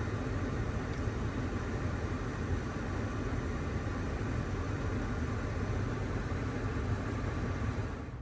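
Steady rushing noise inside a minivan's cabin, heaviest in the low end, with a hiss on top that drops away near the end.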